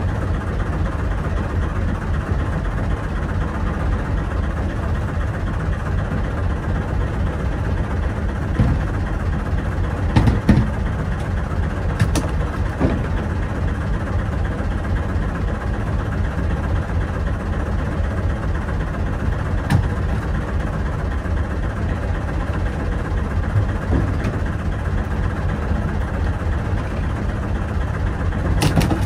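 A boat's engine runs steadily with a low rumble, and a few short knocks are heard over it.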